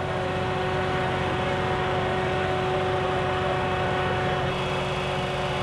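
An engine running steadily at idle, a constant drone with an unchanging hum tone.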